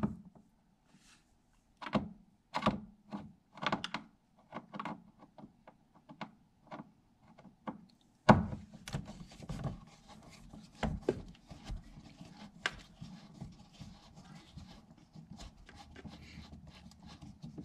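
Irregular clicks, taps and knocks of hands working at a car door's interior panel and window-crank fittings, with one louder knock about eight seconds in. After it a faint steady low hum runs under further small clicks.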